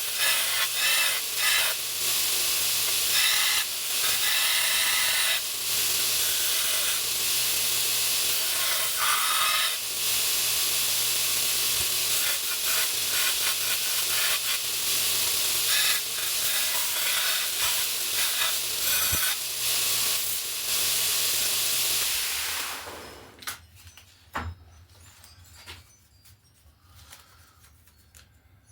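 Grinder running and grinding the steel knife blank: a steady, loud hiss that stops a little over twenty seconds in. A few light clicks follow.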